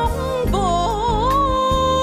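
Music of a Vietnamese folk-style song played live on stage: a melody with wavering, ornamented notes that settles into one long held note about midway, over accompaniment with a steady bass pulse.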